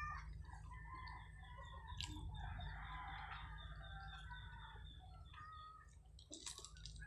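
Chickens calling in the background: a drawn-out, crow-like call and clucks, with a row of short high chirps, over a steady low hum.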